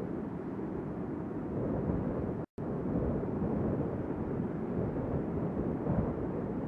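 Tornado sound effect: a steady low rumbling wind noise, with a brief dead dropout about two and a half seconds in.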